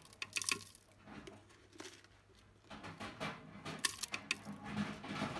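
Plastic spoon knocking and scraping against a stainless-steel blender jar as white granules patter into it, in scattered short clicks and rustles.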